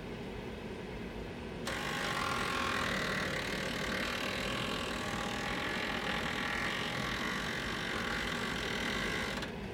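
Green Mountain Grill pellet grill making a loud mechanical noise that starts suddenly about two seconds in and cuts off shortly before the end, over a steady low running sound.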